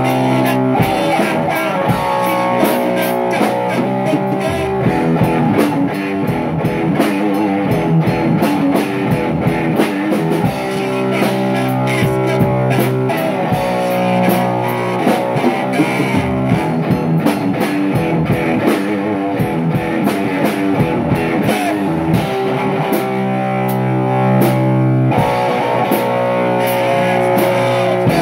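Rock music: guitar chords over a drum kit keeping a steady beat.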